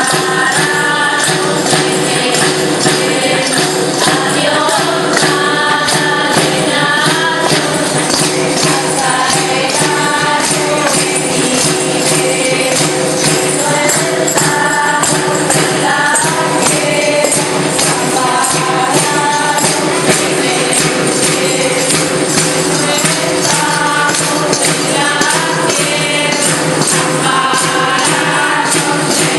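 Voices singing a traditional Asturian folk song together to a steady beat of jingling tambourines (panderetas).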